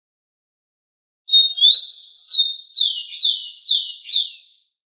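Rufous-collared sparrow (tico-tico) singing one song, starting about a second in: a short whistle that rises, then five down-slurred notes at about two a second.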